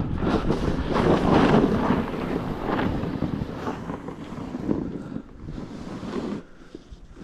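Wind buffeting the camera microphone in a snowstorm, a rumbling gusty roar that surges and eases, dropping away near the end.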